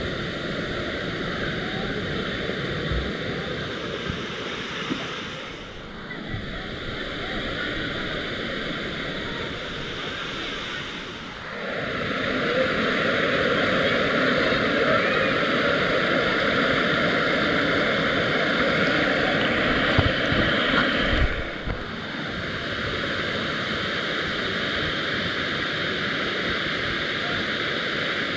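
Steady rush of a waterfall's falling water. The sound jumps abruptly in level three times and is louder from about twelve seconds in.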